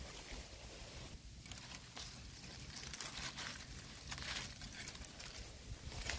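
Faint, irregular rustling and crackling of dry leaves and undergrowth.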